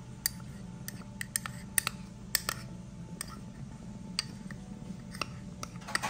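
Butter melting in a saucepan, crackling with sharp irregular pops, over a steady low hum.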